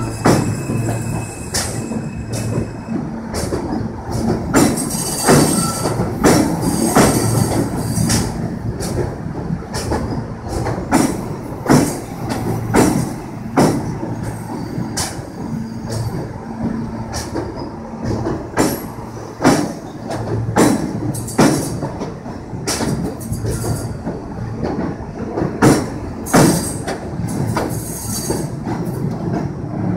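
An R160B subway train rolling past at low speed, its steel wheels knocking sharply and irregularly over rail joints and switch points, over a steady low rumble and hum. There is a brief high wheel squeal about five to eight seconds in.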